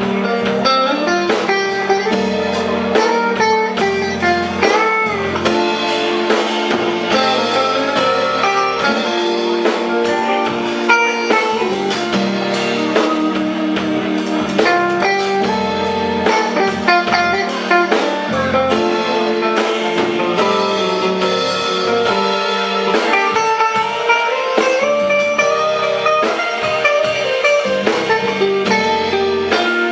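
Live band playing, with guitar prominent over the rest of the band.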